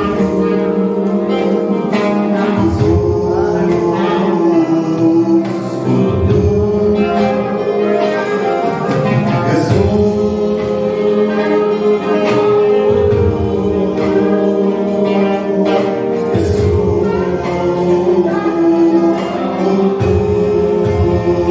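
Arabic Christian worship song: singing over full band accompaniment, with held notes and occasional drum hits.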